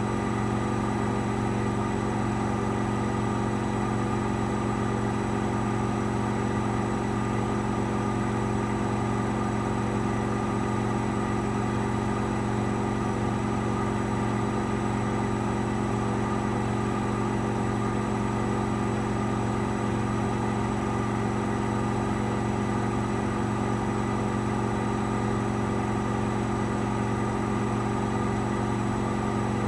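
AEG Lavamat 8000 Series front-loading washing machine in its final spin, the drum held at a constant speed after the fast launch: a steady motor hum with a few fixed tones and an even rush over it, its pitch unchanging throughout.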